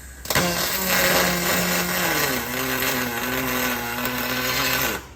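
Welding arc on aluminium: a steady buzzing hiss for nearly five seconds that starts and stops abruptly, its buzz dropping in pitch about two seconds in.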